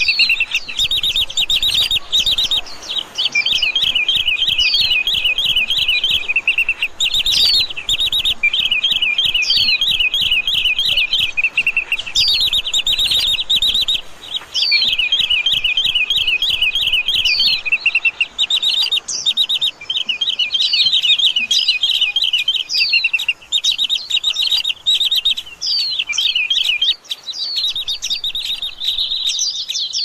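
Caged songbirds in an aviary chirping: long runs of fast chirps with a few brief breaks, over which one bird repeats a single short sliding note every second or two.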